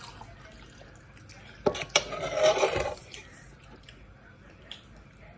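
Two sharp knocks of a spoon against the bowl, then about a second of loud slurping of baso aci broth.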